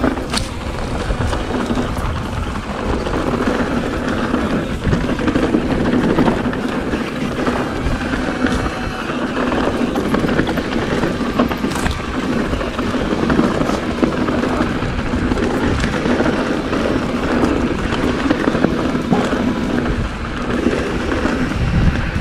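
Mountain bike riding over a rocky trail: tyres rattling on stones and the bike clattering, with many short clicks over a loud, uneven rush of noise.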